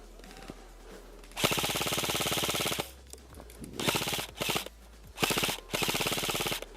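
Airsoft rifle firing on full auto: one long burst of about a second and a half, then four shorter bursts, each a fast even rattle of shots.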